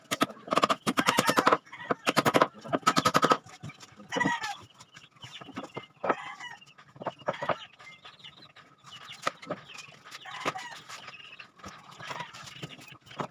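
A rooster crows loudly in several drawn-out, pitched bursts over the first three seconds or so. Scattered shorter chicken calls and clucks follow, along with a few sharp knocks.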